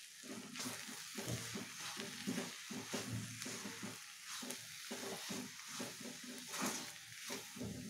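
A wooden spatula stirs and scrapes chopped greens and crushed peanuts around a metal kadhai in quick repeated strokes, over a steady sizzle of frying on medium heat.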